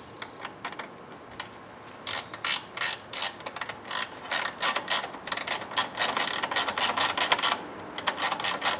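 Small hand ratchet clicking in quick runs as it drives screws into the plastic grille mounts, starting with a few scattered clicks and pausing briefly near the end.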